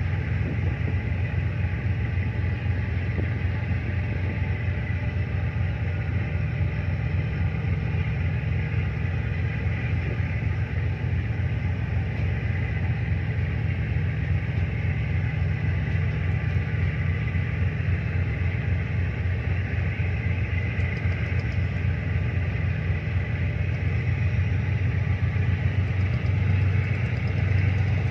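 Tugboat's diesel engine running steadily: a low rumble with an even pulse, growing a little louder near the end.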